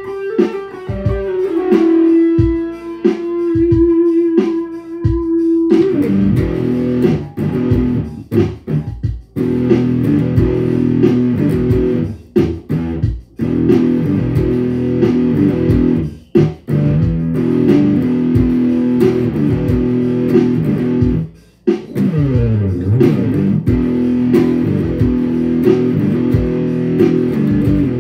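Electric guitar, tuned D G D G Bb D, played solo in improvised riffs. It opens with ringing single notes and a long held note, then about six seconds in switches to a dense, chugging riff with a few brief stops. Around twenty-two seconds in the pitch swoops down and back up.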